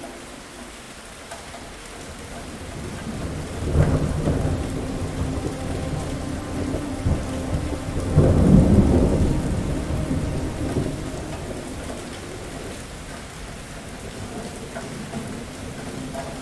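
Steady rain with thunder: a sharp crack about four seconds in, then a long rolling rumble that swells to its loudest a few seconds later and dies away, leaving only the rain.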